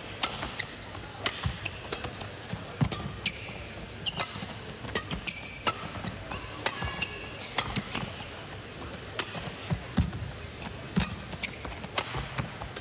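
Badminton rally: rackets striking the shuttlecock with sharp cracks about once a second, and players' shoes squeaking briefly on the court floor between shots.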